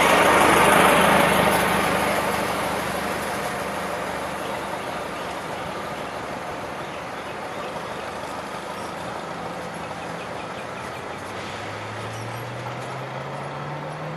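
An old car driving past, loudest about a second in and then fading away as it recedes. Near the end an engine's low note rises in pitch.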